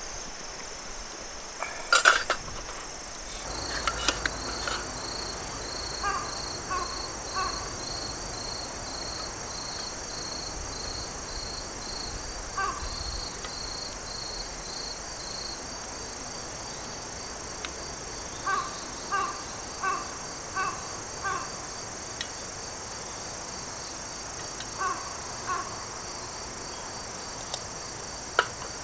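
Harsh bird calls in short runs of two to six over a steady high insect chorus; in the first half a separate insect chirp pulses about twice a second. A sharp knock comes about two seconds in and another near the end.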